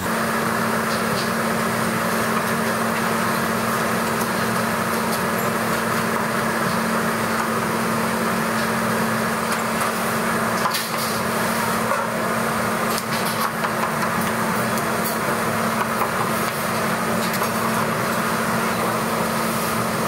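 Steady drone of restaurant kitchen machinery: an even rush with a constant low hum. A knife knocks faintly on the chopping board a couple of times near the middle.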